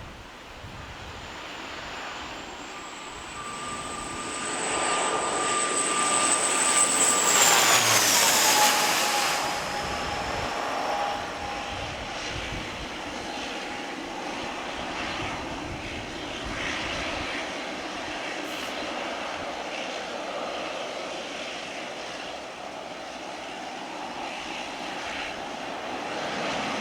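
Jet airliner passing close on its landing approach: engine rumble and whine build up, peak about eight seconds in, and the whine drops in pitch as the plane goes by, then a steady rushing engine noise carries on as it moves away.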